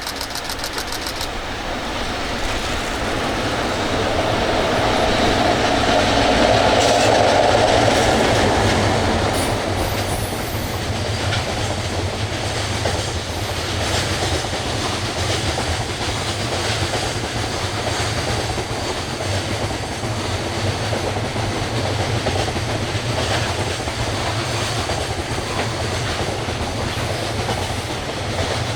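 A train passing on the rails. It builds to its loudest about seven seconds in, then holds steady with the wheels clacking rhythmically over the rail joints.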